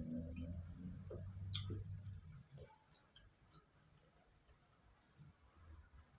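Faint eating sounds: scattered small clicks of chewing and eating, with a low steady hum in the first two seconds.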